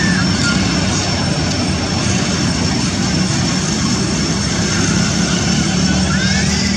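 A loud, steady engine-like drone with a low hum, unchanging throughout. Near the end a faint short call rises and falls in pitch.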